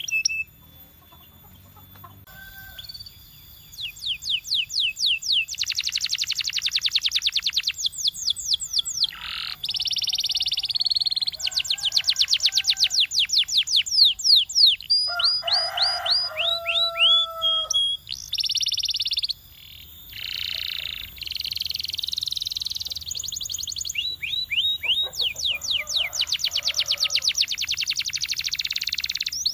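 Canary singing a long, varied song of fast trills and rolls, runs of rapid repeated high notes at changing speeds, with short whistled glides in between. The song starts a few seconds in after a quiet opening.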